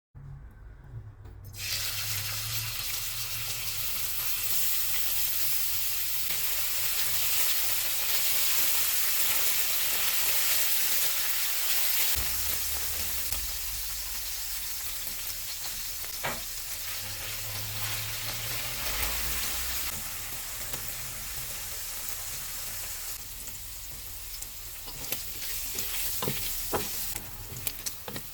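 Food frying in a hot pan, sizzling steadily from about a second and a half in, with a few sharp clicks near the middle and several more near the end.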